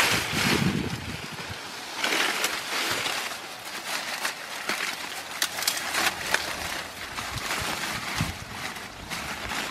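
Dry banana leaves rustling and crackling as they are handled and pressed down by hand, a dense rough rustle with many small sharp crackles.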